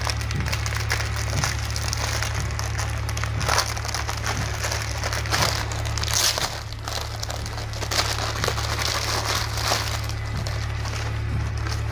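Plastic courier packaging crinkling and rustling as it is handled and unwrapped by hand, over steady background music.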